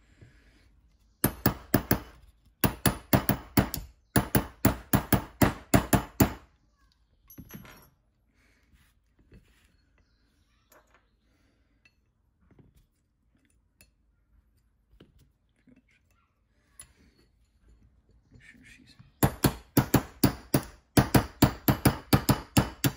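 Ball-peen hammer tapping a steel pin punch in quick, ringing metallic strikes, about four or five a second, driving the firing pin retaining pin out of a CZ 97B's steel slide. Two runs of taps, the first lasting about five seconds, then a pause with faint handling clicks, then a second run near the end.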